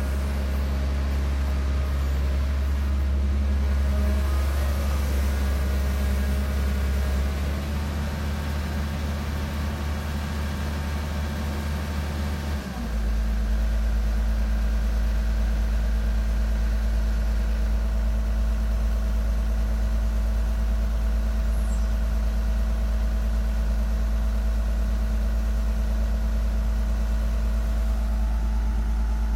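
Dump truck's diesel engine running steadily with a deep hum. About thirteen seconds in, its note changes suddenly and then holds steady again.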